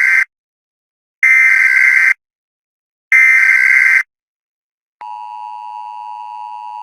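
Emergency Alert System tones: the end of one SAME header data burst, then two more full bursts of screeching digital data, each just under a second long and about two seconds apart. About five seconds in, the steady two-tone EAS attention signal starts, announcing the alert that follows.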